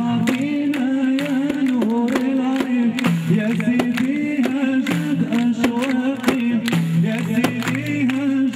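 A man sings a traditional Tunisian folk song through a microphone, accompanied by a steady beat of hand strokes on a goatskin frame drum (bendir).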